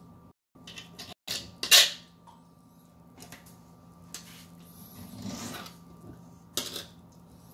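Fillet knife cutting sail catfish fillets on a plastic cutting board: several short knocks and scrapes of the blade against the board, the loudest a little under two seconds in, and a longer, softer scrape around five seconds in. A faint steady hum runs underneath.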